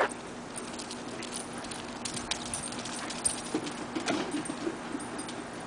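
Two retrievers, a golden and a flat-coated, romping together: scattered light clicks and scuffs of their running and tussling, with a sharp click at the very start.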